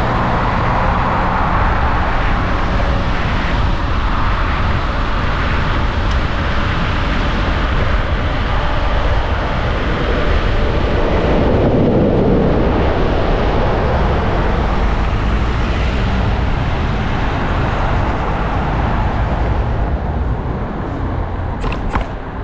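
Steady wind buffeting and rushing road noise while riding a Nami Viper electric scooter at speed, easing off a little near the end, with a few faint clicks.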